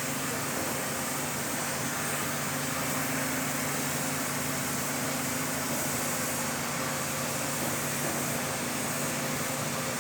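Steady mechanical running noise with a low hum.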